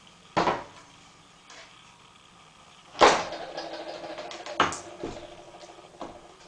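Hands handling a wooden lever bar and steel magnet brackets on a bench: a few sharp knocks and clacks as parts are set down, the loudest about three seconds in, followed by a moment of scraping and rubbing as the pieces are shifted into line.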